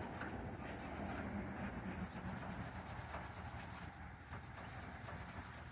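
Steady rubbing and scraping strokes as a truck battery terminal is scrubbed clean.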